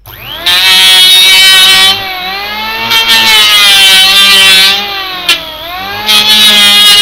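Electric hand planer switched on, its motor spinning up with a rising whine, then cutting a jati belanda (pine) board in three loud passes with the rasp of the blades shaving wood, the motor running quieter between passes.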